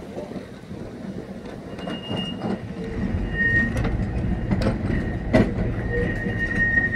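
Vintage Brisbane drop-centre electric tram moving off and rolling past, a low rumble growing louder from about three seconds in, with a high-pitched wheel squeal that comes and goes and scattered knocks from the wheels over the rails.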